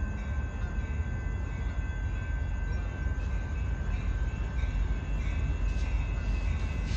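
Distant approaching freight train: a low, steady rumble with faint steady high tones above it.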